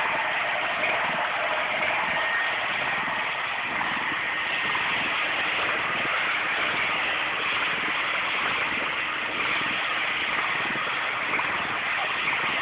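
Petrol-driven high-pressure washer running steadily, its spray head hissing against the tennis court surface without a break.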